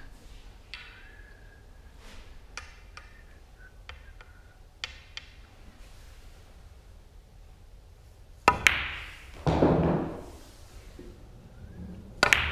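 Pool shots on a 9-ball table. Past the middle, a sharp clack of cue on cue ball and ball on ball is followed about a second later by a duller rumble as the object ball drops into a pocket and rolls away. Just before the end, another sharp clack of the next shot. Before these, only a few light clicks.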